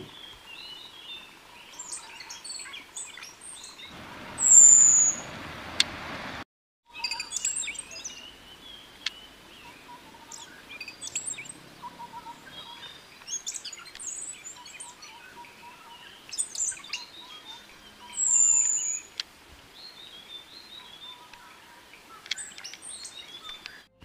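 Sri Lanka whistling thrush (arrenga) song: high, thin whistles. The two loudest slide downward, about four seconds in and again near eighteen seconds, among many shorter chirps.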